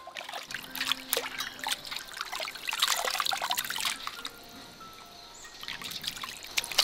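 Hands sloshing and rubbing raw fish pieces in a stainless steel bowl of water, splashing and trickling for about four seconds, then quieter, with a sharp splash near the end. Light background music plays under it.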